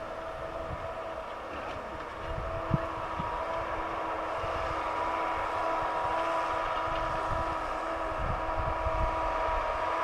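Tractor's diesel engine running steadily under load, pulling a disc harrow through tilled soil, with an even, unchanging drone. A single short knock sounds a little under three seconds in.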